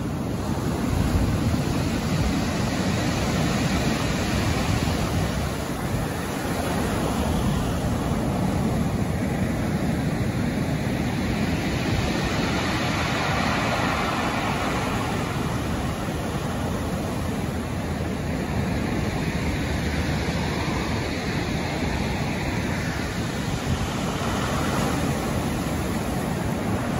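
Rough sea surf breaking and washing up a shingle beach: a steady rushing noise with no pauses, swelling as a bigger wave breaks about halfway through.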